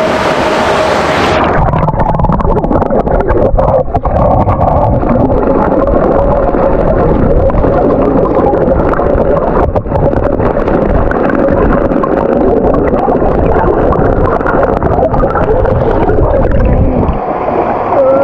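River current heard through an action camera held underwater: a loud, muffled rushing and gurgling with the treble gone. It turns muffled about a second and a half in as the camera goes under, and opens up again near the end as it comes back out.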